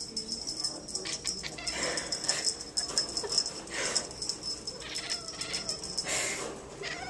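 Maine coon cat making small, soft noises at a feather toy, short breathy calls with a few faint pitched ones, over a light rattling.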